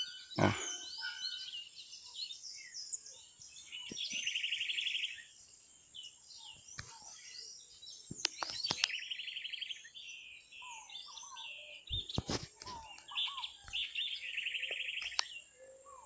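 Several songbirds chirping and singing, with a fast trill of rapidly repeated notes coming three times. A few sharp knocks sound around the middle.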